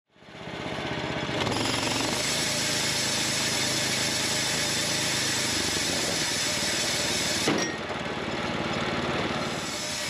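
Wood-Mizer portable band sawmill running, a steady loud mechanical din of engine and band blade. About seven and a half seconds in comes a single sharp crack as the band blade breaks, and the machine runs on a little quieter afterwards.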